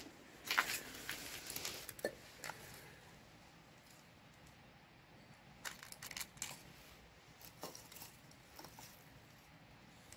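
Faint scattered clicks and light crunches in small clusters: a few near the start, a quiet stretch in the middle, then a few more spread through the second half.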